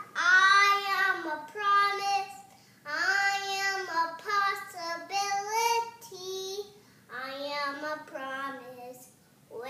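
A toddler girl singing a song in a high voice, holding notes in short phrases with brief pauses between them.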